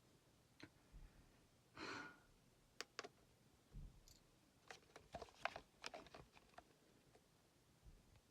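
Near silence: faint room tone with scattered soft clicks and a brief soft hiss about two seconds in.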